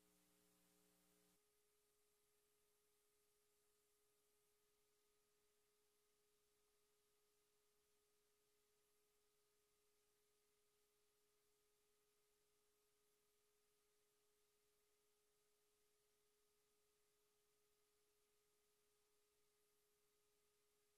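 Near silence: a dead feed with only a very faint steady electronic tone.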